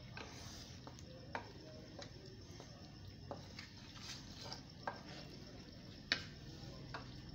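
Wooden spoon stirring boiled eggs and potato chunks through a thick masala in a metal pot, quietly, with a few sharp knocks of the spoon against the pot, the loudest about six seconds in.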